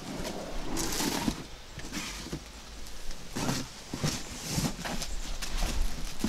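Rustling and scuffing of a black fabric carrying bag being lowered and pushed into a cardboard box, in several short bursts.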